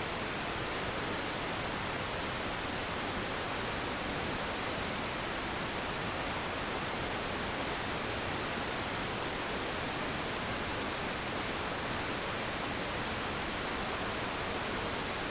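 Steady, unchanging rushing hiss spread evenly across low and high pitches, the white-noise bed of a waterfall relaxation track, with no birds or other events.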